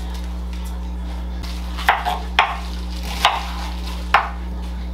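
Kitchen knife cutting an onion on a wooden cutting board: four sharp knocks of the blade hitting the board, starting about two seconds in and spaced roughly half a second to a second apart, over a steady low hum.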